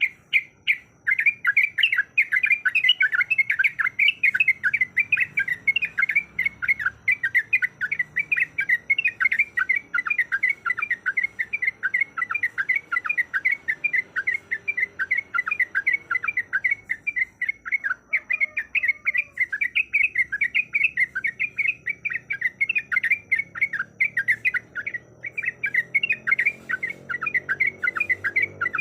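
Yellow-vented bulbul (trucuk) singing a long, unbroken run of quick chattering notes, several a second.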